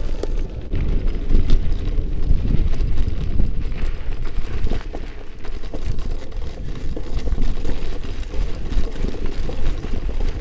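Wind buffeting the camera's microphone as a mountain bike rides down a bumpy dirt track, with frequent rattles and knocks from the bike and mount over the rough ground.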